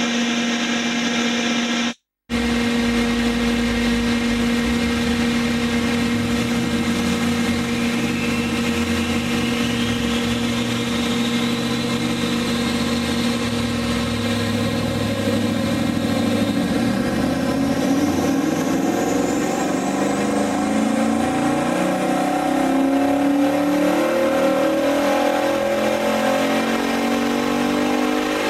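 Cammed 6.2-litre LS3 V8 on a chassis dyno, running steadily at first and then pulling up, its pitch climbing through the second half together with a rising whine from the dyno rollers and driveline. The sound cuts out briefly about two seconds in.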